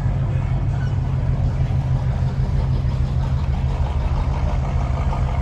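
A car engine idling with a steady, deep low rumble.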